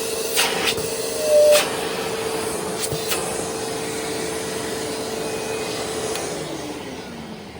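Sharp EC-T2840 upright vacuum cleaner motor running steadily with suction through the hose, with a few sharp clicks and a brief squeal in the first few seconds. About six seconds in the motor is switched off and winds down, its hum falling in pitch and fading.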